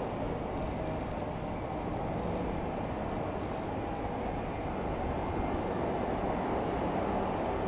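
Single-engine light aircraft's piston engine droning steadily, growing slightly louder in the second half.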